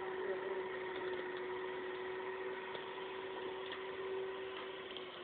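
Electric hand mixer running steadily: a constant, even motor hum as its beaters work a butter mixture in a metal bowl.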